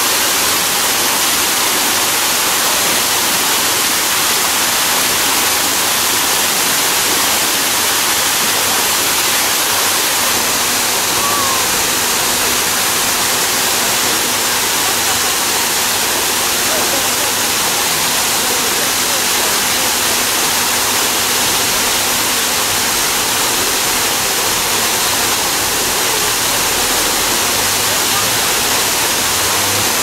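Waterfall cascading down rock ledges into a pool: a steady, dense rush of falling and splashing water.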